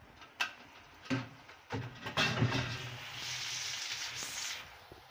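Boiled tripe pieces dropped by hand from a metal colander into a pan of hot mustard oil and onions: a few knocks and clatters, then a steady sizzle for about a second and a half as they are turned with a spatula.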